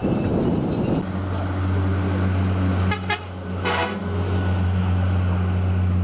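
Heavy earthmoving machinery's diesel engine running with a steady low hum, after a second of rough rumbling noise. Two short toots, well under a second apart, come about halfway through.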